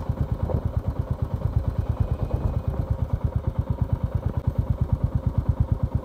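Motorcycle engine running at a steady low speed, a regular low pulsing of about ten beats a second.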